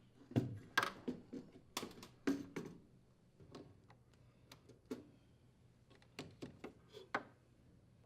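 Scattered clicks and light clatter of spring hose clamps being released from a furnace's drain trap hoses, and the rubber hoses being pulled free of their fittings; some clicks ring briefly.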